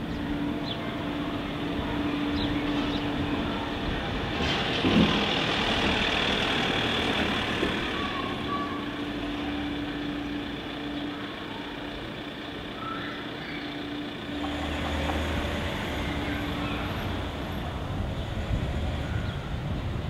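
Street traffic: vehicle engines running, with a steady engine hum and a deeper rumble of a passing vehicle coming in about two-thirds of the way through.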